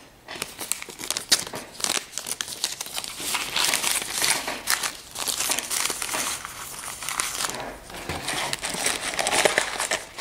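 Crinkly wrapper of a trading-card pack crackling and rustling as it is handled and opened, a dense run of small crackles lasting several seconds.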